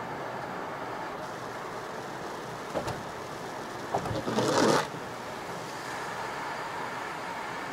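Steady road and engine noise of a car at highway speed, heard inside the cabin. About four seconds in, a brief louder burst of noise rises over it, with a smaller knock just before.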